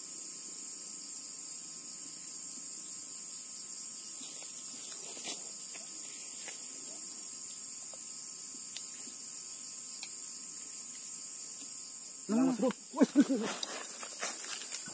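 Steady high-pitched chirring of night insects (crickets). About twelve seconds in comes a short, loud cry, followed by a scatter of knocks and rustles.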